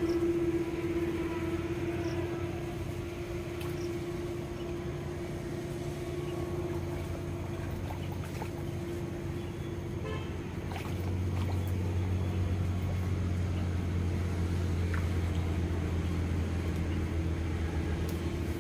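A steady motor drone with a humming tone; a deeper, louder hum joins about eleven seconds in.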